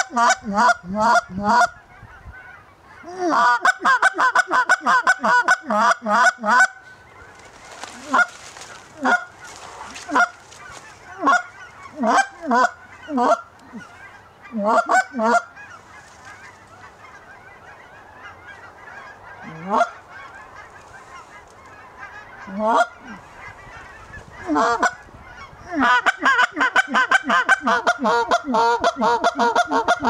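Canada goose call blown by hand: rapid runs of honks and clucks at the start, again at about 3 seconds, and from about 26 seconds on. Between these runs come scattered single and double honks.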